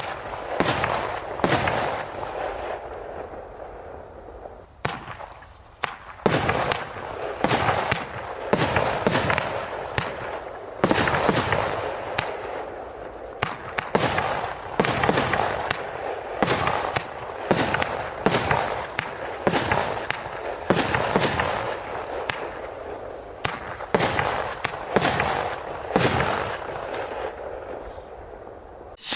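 Zeus Profi Box 19-shot firework barrage firing shot after shot, about one to two bangs a second, each launch followed by crackling breaks, with a short lull about five seconds in.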